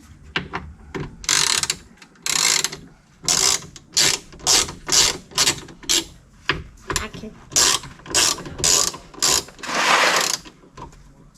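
Hand ratchet clicking in short back-and-forth strokes, roughly two a second, turning a T30 Torx bit to loosen the screws of a power window motor.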